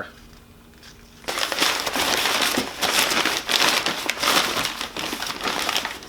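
Plastic parts bag crinkling as it is handled and opened. The dense crackle starts about a second in and carries on steadily.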